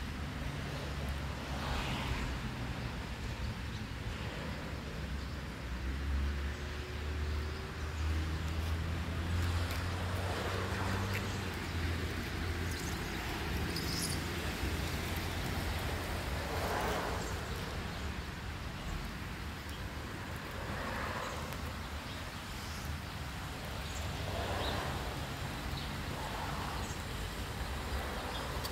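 Traffic on wet roads: a vehicle engine rumbles low for the first dozen seconds, and cars swish past several times, each pass swelling and fading over about a second.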